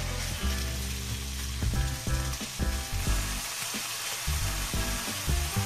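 Diced raw chicken sizzling in hot oil in a nonstick frying pan, a steady frying hiss, with lo-fi background music underneath.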